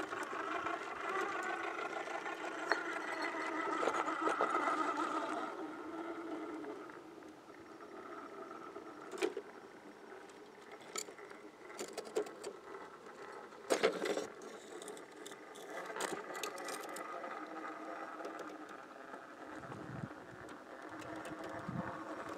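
Small electric RC rock crawler crawling over rocks, its motor and gears whining in a steady tone, louder in the first few seconds. Scattered clicks and knocks of tires and chassis on stone run through it.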